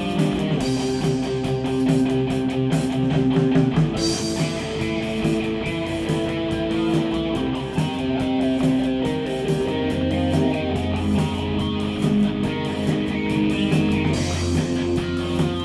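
Live rock band playing: electric guitar to the fore over drums and bass guitar.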